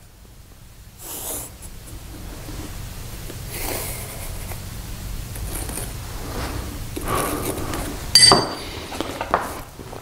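Pencil scratching as it traces around a steel vise jaw on a paper notepad, with sleeve and hand rustling close by. About eight seconds in there is a short, ringing metallic clink.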